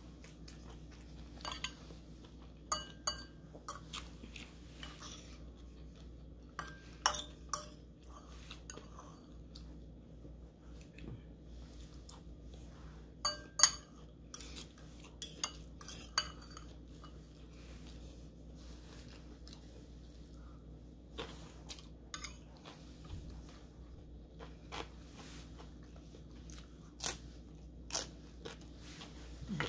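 Metal fork clinking and scraping against a ceramic bowl as the last pansit noodles are gathered: scattered sharp clinks, some ringing briefly, the loudest about halfway through. Between them comes crunchy chewing of a fried egg roll.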